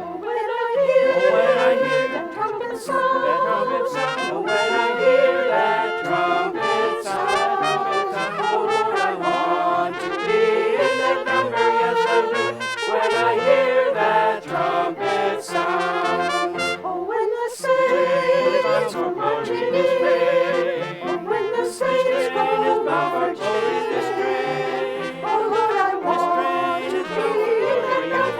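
Brass ensemble playing an instrumental passage of an upbeat gospel arrangement, sustained melody and harmony lines throughout, with occasional short sharp accents.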